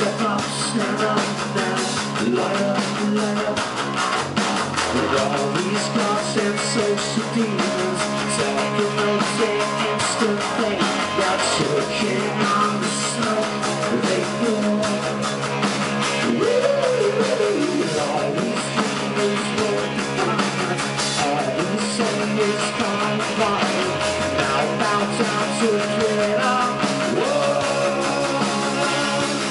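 A rock band playing live: electric guitar and a drum kit driving a steady beat, with a man singing into a microphone.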